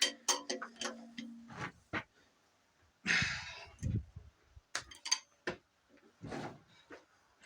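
Hand tools clinking and knocking on a Dodge 318 V8 as its cylinder head bolts are worked loose. There is a series of sharp clicks, a short rasping burst about three seconds in, and a dull thump just after.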